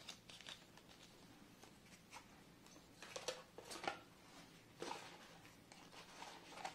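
Faint handling noise of paper and a small cardboard box: soft rustles and light scuffs scattered through, the clearest about three and five seconds in.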